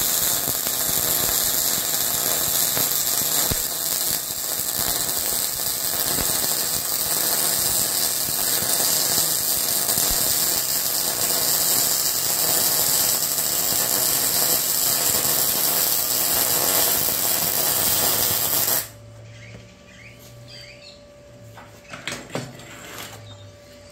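Arccaptain MIG200 MIG welding arc crackling steadily while a bead is run on steel, cutting off suddenly about 19 seconds in. After it stops, a faint steady hum and a few clacks as the torch is set down.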